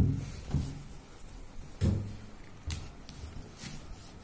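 Round plastic cream jar handled on a tabletop while its screw lid is twisted open: a sharp knock at the start, another about two seconds in, and a few softer knocks and clicks in between.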